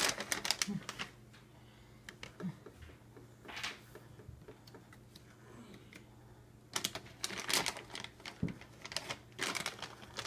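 Baby swing in motion: clusters of sharp clicks and rattles from its mechanism come back every few seconds, over a faint steady motor hum.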